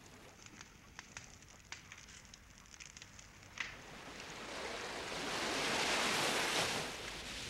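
Faint scattered clicks, then about four seconds in a wave of surf surges in, swelling to a loud rushing wash and easing slightly near the end.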